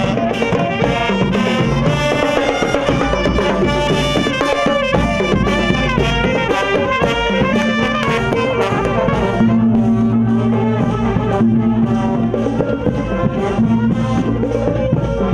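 Thai marching brass band playing a lively tune: trumpets, trombones and saxophone over bass drums and tenor drums keeping a steady beat.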